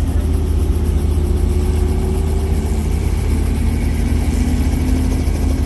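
Robinson R44 Raven I helicopter's six-cylinder Lycoming piston engine and rotor running steadily on the ground, heard from inside the cabin as a loud, even low drone with a faint steady whine above it.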